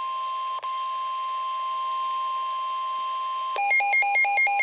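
NOAA Weather Radio warning alarm tone: a steady single pitch near 1 kHz that signals a warning is about to be read. About three and a half seconds in it gives way to a louder electronic alarm that switches rapidly between two pitches, about five alternations a second.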